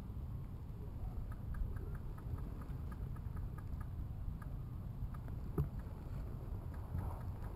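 Low rumble of wind and movement on a body-worn camera's microphone. A run of faint quick ticks begins about a second in, and one sharper click comes about five and a half seconds in.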